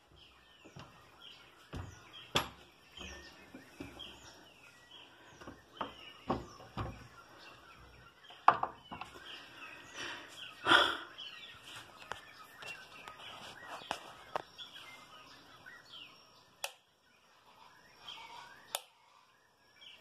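Dawn chorus of many birds, with short, quickly repeated chirps that sweep downward, overlapping one another. Several sharp knocks or clicks cut in, the loudest about eight and eleven seconds in.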